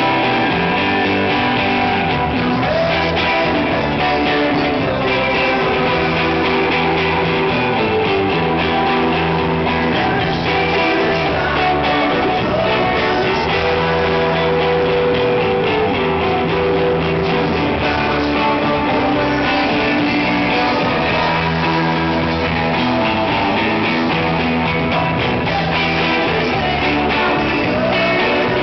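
Live rock band playing loud and steady: electric guitars over bass and drums, with a male lead vocal sung into the microphone, recorded from the audience.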